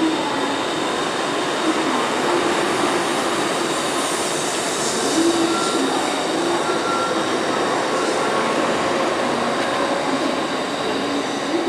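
Shinkansen bullet train rolling slowly along the platform, a steady rumble and hiss of wheels and motors with a few brief pitched tones.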